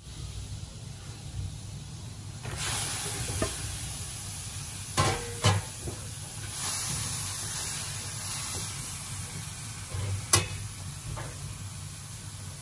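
Raw shrimp sizzling in hot oil in a nonstick frying pan, the sizzle swelling about two and a half seconds in and staying strong. A few sharp knocks sound over it, twice close together midway and once loudest near the end.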